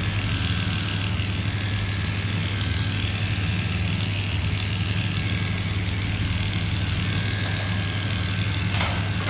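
Heiniger Opal electric dog clipper running with a steady hum as its blade shaves through a dog's coat.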